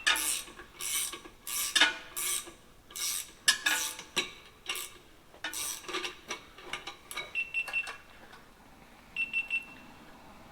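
Repeated scraping strokes on metal, roughly one or two a second, with a faint metallic ring, stopping about seven seconds in. Then a short high electronic beep sounds twice, a couple of seconds apart.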